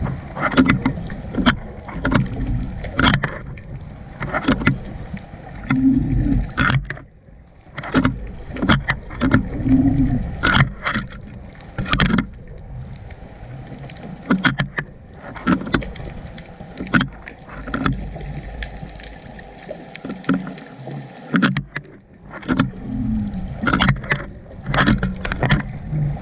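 Underwater sound picked up through a GoPro's waterproof housing: a muffled low rumble of water broken by many irregular knocks and clicks.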